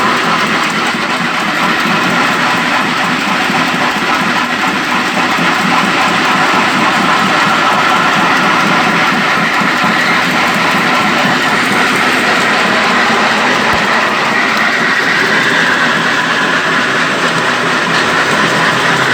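Stone-cutting machine in a quarry running steadily, a loud, even mechanical noise that does not let up.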